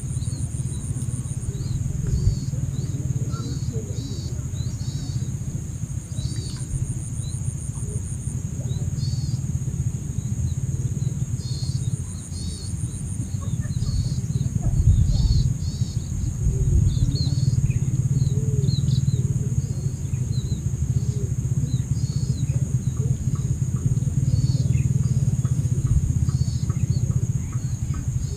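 Open-air wetland ambience: a steady low rumble runs under a constant high insect hum, with short high chirps repeating every second or two.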